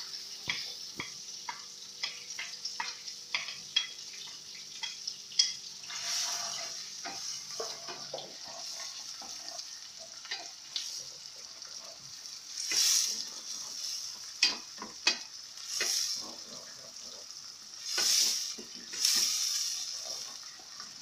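Chopped onions frying in hot butter in a steel pan, stirred with a wooden spatula. A steady sizzling hiss runs under frequent light clicks and scrapes of the spatula on the pan, and it swells louder several times as the onions are turned.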